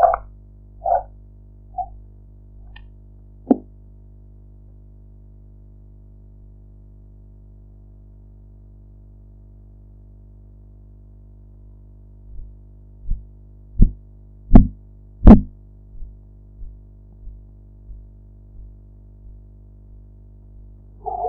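Korotkoff sounds through a stethoscope during a blood pressure reading: soft rhythmic thumps with the pulse, roughly three beats every two seconds, over a faint steady hum. They fade out in the first few seconds, are silent for about eight seconds, then return loud about twelve seconds in and grow weaker beat by beat until they disappear.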